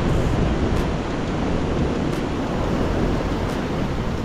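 Sea surf washing on a rocky shore, with wind rumbling on the microphone: a steady, loud noise.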